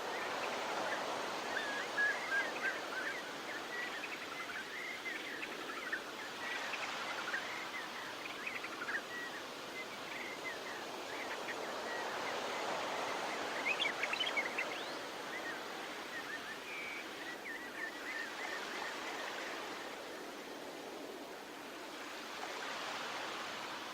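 Surf washing onto a beach, rising and falling in slow swells, with many short, high bird chirps over it that die away near the end.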